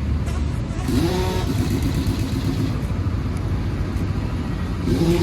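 Steady low rumble of motor-vehicle engines, with a short pitched sound that rises and then holds about a second in and again near the end.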